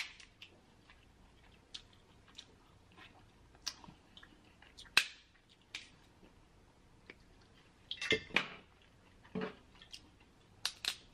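Cooked snow crab leg shells being cracked and snapped open by hand: scattered sharp cracks and clicks, the loudest about five seconds in and a cluster around eight seconds.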